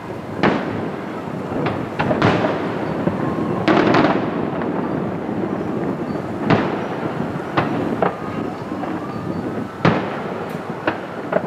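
Aerial fireworks shells bursting: a string of sharp bangs about a second apart, the loudest about four seconds in, over a steady wash of noise between them.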